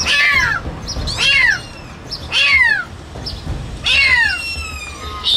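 Kitten meowing: repeated high-pitched cries, each falling in pitch, about one every second and a quarter.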